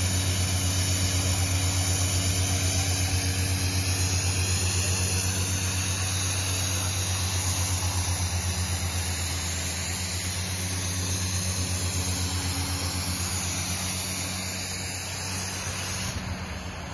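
A 350 PSI air compressor running steadily with a fast, even pulse, over the hiss and rush of compressed air and muddy water blasting out of the tubewell's discharge pipe as the well is developed. It eases off slightly near the end.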